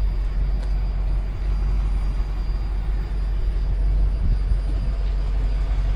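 Steady low engine-like rumble, running evenly throughout with no clear changes.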